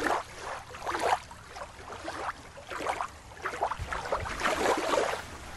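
Small waves lapping at a sandy shore in soft, irregular swishes.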